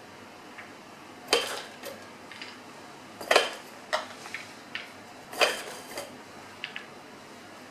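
Hard parts of a homemade dog puzzle toy being handled and clattering together like dishes: three loud clatters about two seconds apart, with lighter clicks and knocks between them.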